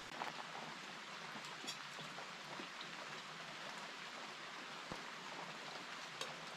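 Light rain falling steadily, with a few faint scattered drip ticks.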